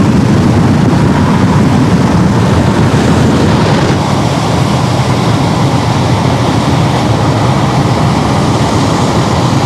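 Waterfall roaring close by: a loud, steady rush of falling water.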